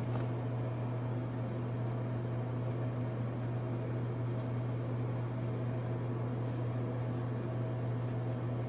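Steady low mechanical hum with a constant hiss, and a faint tick about three seconds in.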